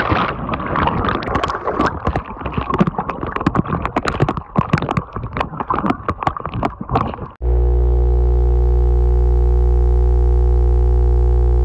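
Heavy splashing and thrashing in river water, full of sharp knocks and rattles, as an angler slips and falls in while fighting a hooked snakehead fish. About seven seconds in, this cuts off abruptly to a loud, steady electronic buzz with a deep hum.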